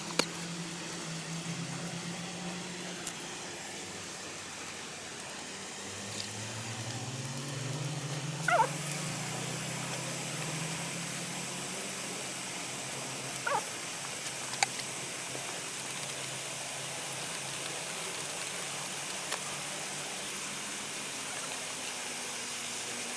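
A dog yelping or whining a few times, short high calls that drop in pitch, over a steady outdoor hiss and a low drone that rises in pitch about six seconds in.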